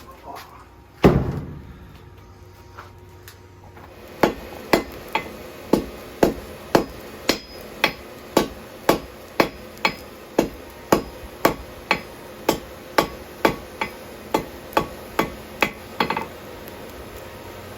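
Blacksmith's hand hammer striking hot steel on an anvil in an even rhythm of about two blows a second, each with a short metallic ring, while forging a fire poker. One heavier thud comes about a second in, before the steady run of strikes starts.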